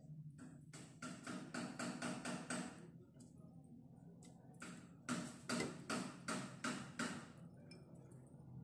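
Light clicks and taps on a plastic blender cup as pesto ingredients are tipped and dropped in by hand. They come in two quick runs of about six clicks each, and the second run is louder.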